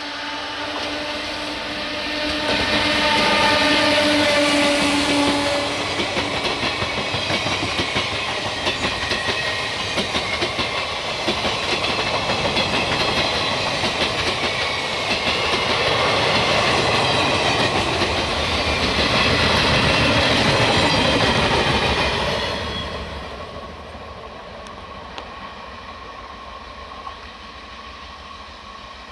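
Indian Railways electric passenger train passing close at speed. A steady tone sounds from the locomotive in the first five seconds or so, then the coaches clatter by over the rail joints. The sound drops sharply after about 23 seconds as the train moves away.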